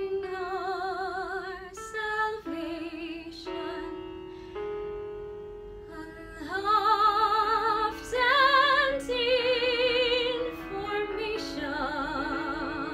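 A woman singing a classical art song in a trained voice with vibrato on the held notes, rising to louder high notes about halfway through.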